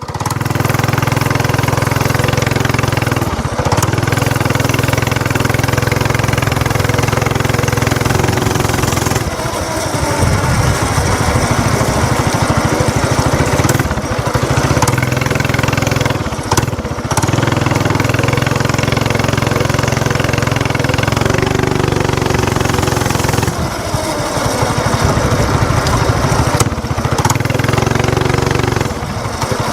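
Gas mini bike's small engine starting up and running, with the throttle opening and closing as it is ridden, dropping off briefly several times.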